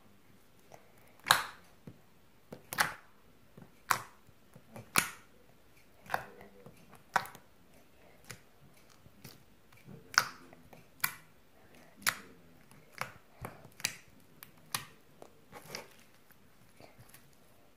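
Clear glitter slime pressed and poked with fingertips, giving sharp popping clicks about once a second, some much louder than others.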